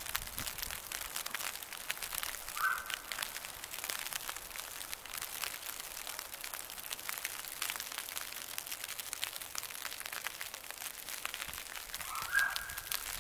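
Steady fine crackling ticks, with two short bird calls, one about three seconds in and one near the end.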